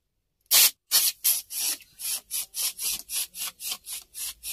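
Aerosol can of AC refresher foam cleaner spraying into car dashboard air vents in short hissing bursts, about three a second, starting about half a second in.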